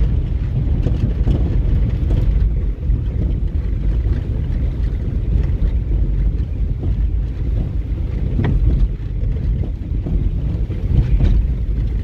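Car driving on a snow-covered road, heard from inside the cabin: a steady low rumble of engine and tyres.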